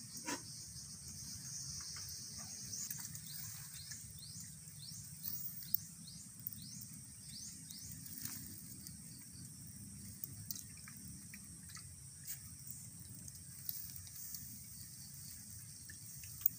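Countryside ambience: a steady high insect drone with a quick series of short rising chirps in the first half, and a few sharp clicks scattered through.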